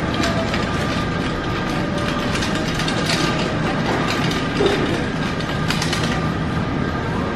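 Supermarket background: a steady hum of store machinery, with a run of rattling clicks that stops about six seconds in.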